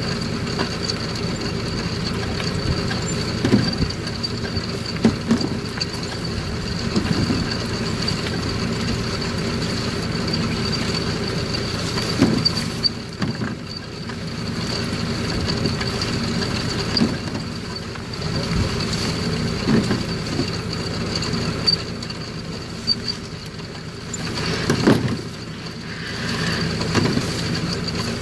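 A machine engine running steadily, with a constant high whine over it, and a few scattered knocks.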